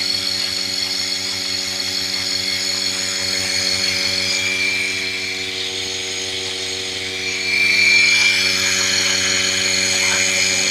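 Portable bucket milking machine running: its vacuum pump gives a steady mechanical hum with a hiss over it as milk is drawn through the clear hoses into the can. The hiss grows louder about three quarters of the way in.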